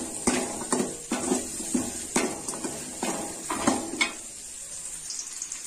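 Metal ladle scraping and clinking against a metal kadai as whole shallots are stirred in hot oil, over a light sizzle. The strokes come irregularly and thin out after about four seconds.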